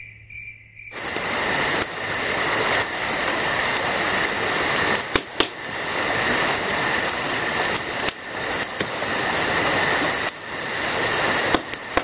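Crickets chirping steadily over a wood fire crackling in a fire pit, with a few sharp pops about five seconds in and near the end. The sound starts abruptly about a second in.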